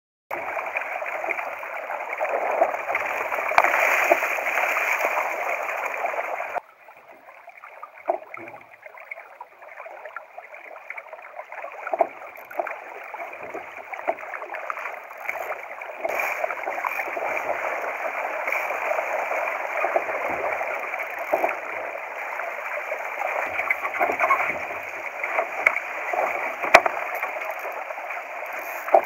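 Water rushing and splashing along a Laser dinghy's hull, heard from a camera on the foredeck, with scattered small knocks. It is louder for the first six seconds, then drops suddenly and goes on more softly.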